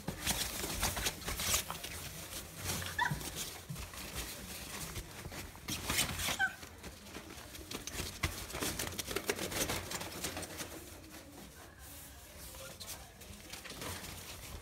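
Puppies scrambling through a fabric play tunnel, the nylon rustling and crinkling under their paws, with a couple of short high puppy squeaks about three and six seconds in.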